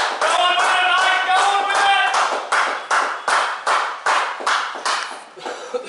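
Spectators clapping, with a few voices calling out over the first two seconds; the applause goes on at about three or four claps a second and thins out near the end. It is applause for a batter who is raising his bat to the crowd.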